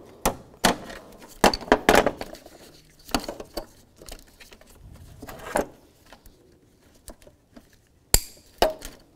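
Irregular plastic clicks and light clattering as an electrical connector is worked off a car's wiring harness by hand and with pliers, with a sharp click about eight seconds in.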